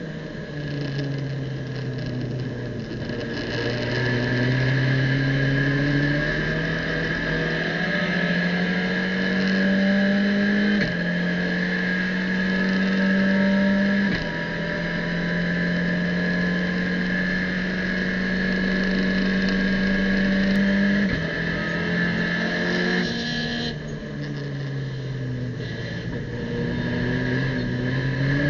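Abarth race car's engine heard from inside the cockpit, revving hard and climbing in pitch through the gears with shifts about 11 and 14 seconds in, then holding a steady high note. About two thirds of the way through the revs drop away as the car brakes and downshifts for a corner, then climb again near the end, with a steady high whine over the engine throughout.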